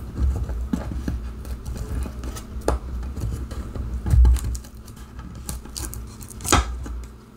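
Hands pressing and rubbing thin laser-cut wooden letters down onto a wooden sign so their double-sided adhesive tape bonds. There are low bumps of the board against the table, the loudest about four seconds in, and a few sharp wooden taps, one about three seconds in and one near the end.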